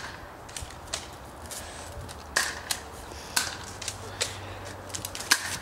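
A run of irregular sharp clicks and snaps, the loudest about two and a half, three and a half and five seconds in.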